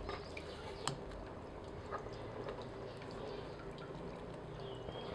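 Shrimp broth bubbling quietly in a stainless saucepan on the stove. There are a few soft clicks and plops as aromatics are dropped in from a wooden cutting board, the clearest about a second in.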